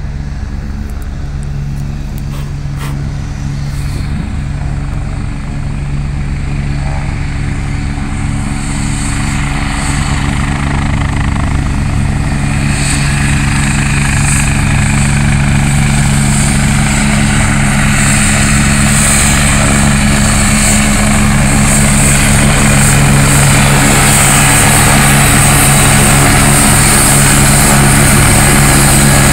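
Agusta A109 Grand helicopter taxiing closer: a steady rotor drone with a high turbine whine that builds from about a third of the way in, the whole sound growing steadily louder as it nears.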